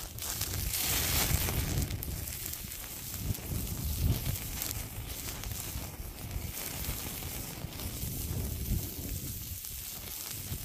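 Large beef roast sizzling on a grill grate over a charcoal fire, with a steady crackle and hiss as fat drips and flares in the flames; loudest about a second in.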